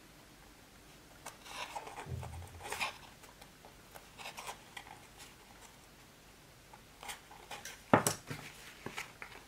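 Faint rustling and small clicks of fabric-covered cardboard and elastic being handled as the elastic ends are pushed through a hole with a pointed tool, with a sharp knock near the end as the cover is turned over and the tool set down on the table.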